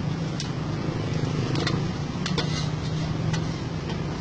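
A low, steady motor hum, with sharp metal clicks of a spatula on the steel griddle every so often.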